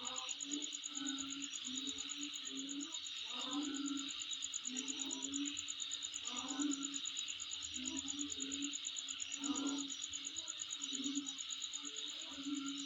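Night insects calling in a steady chorus, with a fast, even high-pitched trill over it. A lower, repeated sound comes in short bursts about once a second beneath the chorus.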